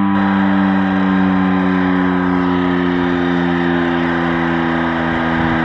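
Federal Signal STL-10 outdoor warning siren sounding a steady, unwavering tone.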